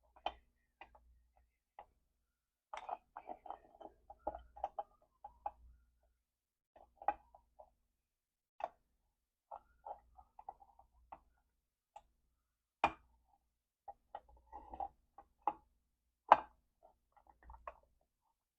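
Motorcycle drum brake shoes, return springs fitted, clicking and knocking against the brake backing plate as they are pressed and forced on from the sides. Irregular light metallic taps, with two sharper knocks in the second half.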